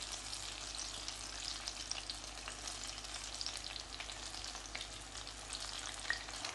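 Battered chicken pakoras deep-frying in hot oil: a steady sizzle with many small crackles and pops.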